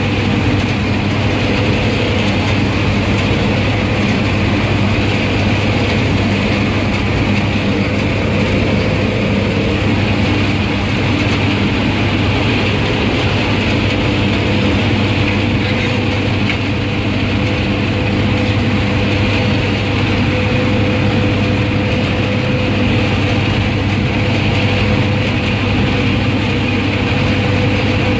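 Claas Mercator 75 combine harvester heard from inside its cab while harvesting barley: engine and threshing machinery running steadily and loudly under load, a low hum with mechanical rattle over it.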